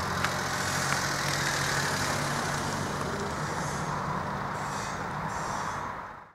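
A motor vehicle engine running steadily, with a low hum and a steady wash of traffic noise, cutting off suddenly near the end.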